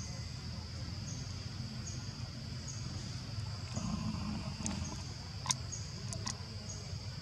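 Insects in the trees: a steady high buzz with a short chirp repeating about once a second. A few sharp clicks come about halfway through.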